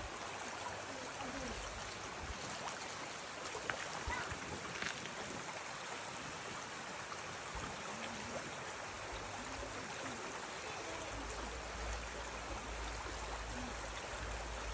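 Water running in a stream, a steady, even rushing sound, with a few faint ticks about four seconds in and a low rumble joining near the end.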